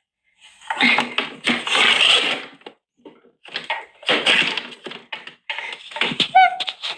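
Crackling, rustling handling noise with light clicks and knocks, in three stretches, as small toys and props are moved about. A brief squeak comes near the end.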